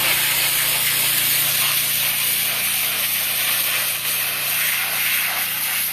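Pressure washer jet spraying a house's exterior, a steady loud hiss of high-pressure water, washing off brown buildup.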